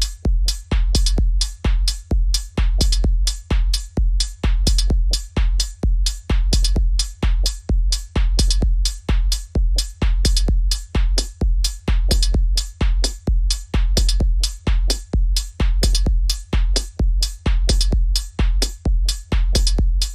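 Experimental techno played live on a Native Instruments Maschine+ groovebox and a Denon Prime unit: a steady drum-machine kick about twice a second under sharp, bright hi-hat and noise hits.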